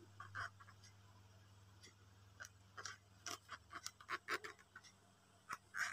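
Faint, irregular soft scratches and ticks of a crochet hook working yarn through single crochet stitches, over a low steady hum.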